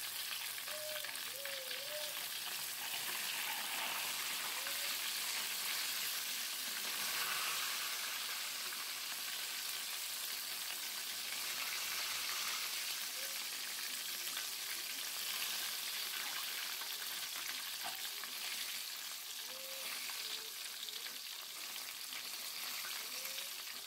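Flour-dusted chicken wings deep-frying in hot oil in a wok: a steady sizzle, with the pieces being turned and lifted with tongs near the end of frying.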